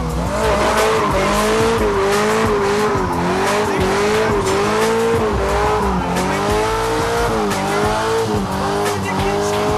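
Front-wheel-drive Honda Civic doing a stationary burnout: the engine held at high revs while the spinning front tyres squeal, the pitch wavering up and down without a break.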